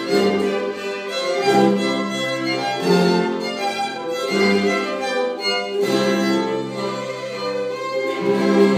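Live school ensemble music: a violin plays the tune over a group of ukuleles and a cello, the bass note changing every second or two.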